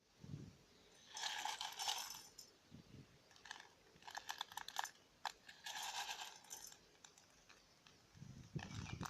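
Metal pieces clinking and rattling in several short spells of rapid clicks, a little over a second each.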